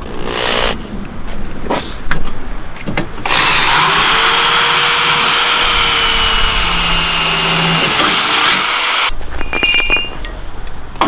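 A handheld power tool, likely a drill, spins up about three seconds in and runs steadily for about six seconds with a high whine, then cuts off. It is preceded by a few knocks.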